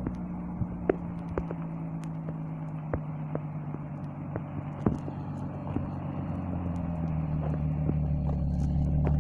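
Infiniti G35's 3.5-litre V6 idling steadily on a stock, untuned engine, with irregular sharp pops and crackles from the exhaust scattered throughout. The idle grows gradually louder toward the end.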